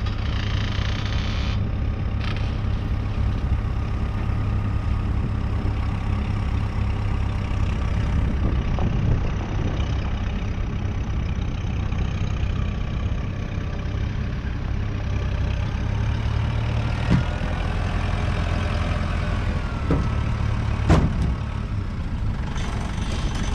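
Kubota tractor engine running steadily at idle, with a few sharp knocks in the second half.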